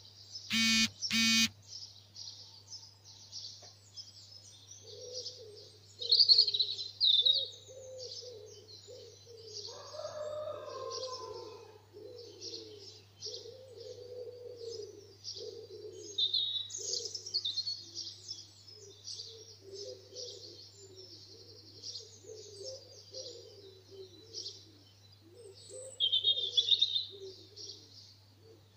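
Dawn chorus of garden songbirds: many overlapping high chirps, trills and warbles, with lower calls beneath them and louder bursts of song about 6, 16 and 26 seconds in. About a second in come two short, loud, harsh calls or honks. A faint steady low hum runs under it all.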